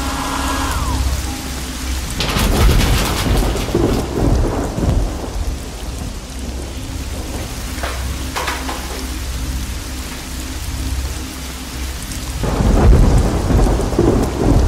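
Thunderstorm with steady rain and rolls of thunder. One roll comes about two seconds in and a louder one near the end.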